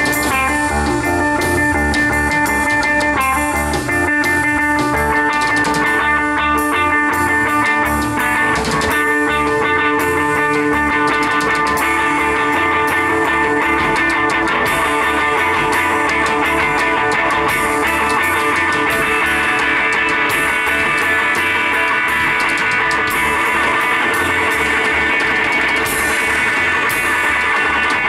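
Live psychedelic rock trio playing an instrumental jam: electric guitar holding long notes over electric bass and a steady drum kit with cymbals, no vocals.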